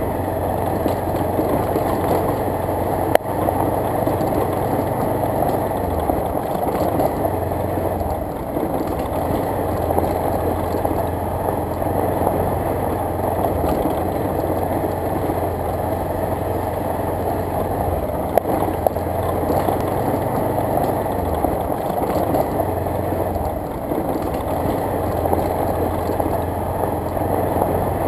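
Motorcycle engine running steadily while riding on a gravel road, mixed with wind rushing over the microphone and tyre noise on the loose surface. A few brief sharp clicks or knocks stand out, about three seconds in and again past halfway.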